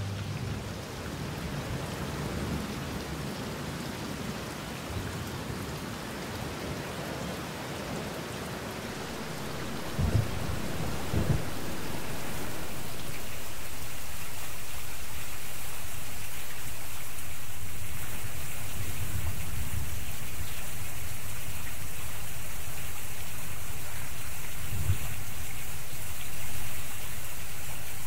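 Steady rain, starting soft and growing heavier from about ten seconds in. A few short low thumps come about ten seconds in and again near the end.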